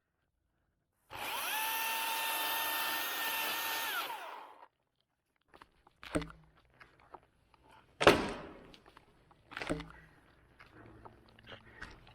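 Milwaukee M18 battery chainsaw winding up to a steady high whine, cutting for about three seconds, then spinning down as the trigger is released: one cut of a snap cut on a dead pine trunk. After a pause, several sharp knocks follow, the loudest about eight seconds in.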